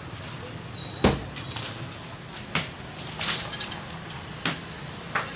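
Irregular knocks and bangs, the loudest and sharpest about a second in and a few fainter ones after it, over a steady low background noise.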